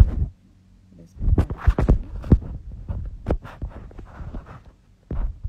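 Handling noise on a phone's microphone: irregular thumps, knocks and rubbing with sharp clicks as the phone is gripped and turned, busiest a second or two in.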